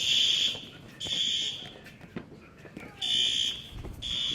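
System Sensor SpectrAlert fire alarm horns sounding the temporal-three evacuation signal: short, high-pitched blasts about a second apart in groups of three. The last two blasts of one group and then, after a pause of about a second and a half, the first two of the next are heard.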